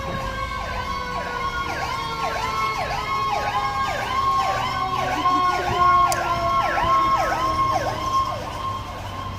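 Fire apparatus sirens passing: an electronic yelp sweeping about twice a second over a steadier siren tone that slowly falls in pitch, with truck engine noise underneath. It grows louder toward the middle and then fades.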